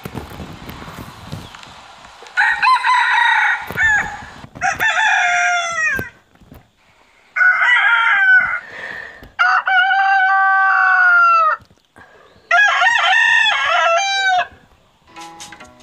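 Roosters crowing one after another: three long crows, each rising and falling in pitch and broken into parts, the first starting about two seconds in.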